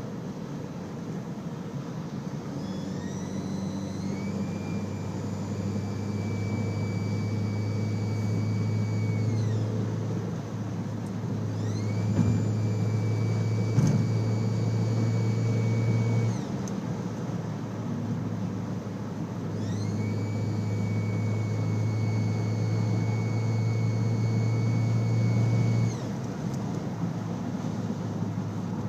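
Audi A4 B6 engine raised in revs and held three times. Each time a high turbocharger whine glides up, holds steady for several seconds, then falls away over the engine's hum. The whine comes from a turbo compressor wheel with a bent fin, damaged by rubber grommets from an aftermarket AFE intake that broke off and were sucked into it.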